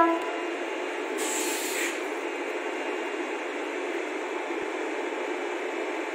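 A locomotive horn cuts off at the very start, followed by a steady hiss of rail-yard background noise. A brief sharper hiss comes about a second in.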